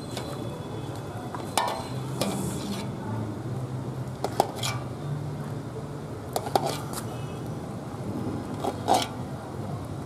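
Metal ladle stirring sauce in an aluminium stockpot, clinking and scraping against the pot's side a handful of times.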